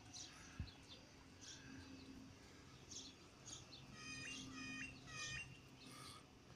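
Faint birdsong: scattered short chirps, with a quick run of sharp notes about four seconds in.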